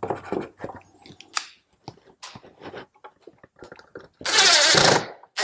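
Small clicks and creaks as a thin wooden trellis limb is stretched out against a jig. About four seconds in, a cordless drill-driver runs for under a second, driving a screw to lock the bent limb in place.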